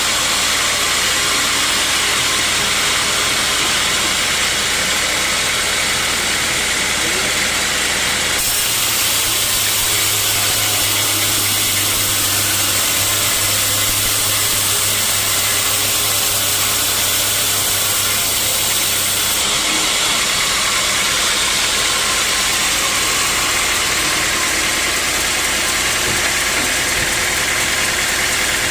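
Sawmill machinery running steadily with a loud, even noise and a low hum; its tone shifts abruptly about eight seconds in and again near nineteen seconds.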